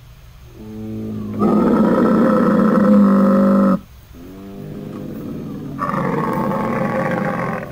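Camel calling twice with long, strange, rough bellows. Each call starts low and pitched, then swells into a loud raspy grumble. The first cuts off suddenly just before the second begins.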